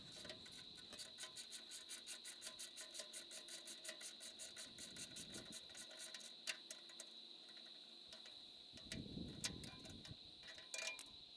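Cicadas making a steady high-pitched buzz, with a hand ratchet clicking rapidly, about six clicks a second, for the first half as it spins a bolt loose, then a few scattered clicks.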